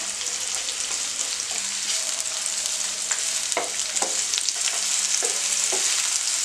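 Sliced onions sizzling in hot oil in a non-stick frying pan, stirred with a wooden spatula, with a few short scrapes of the spatula against the pan in the second half.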